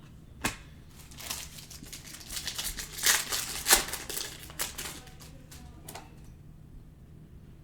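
Basketball trading cards being handled: crinkly rustling with sharp clicks, which dies away about six seconds in.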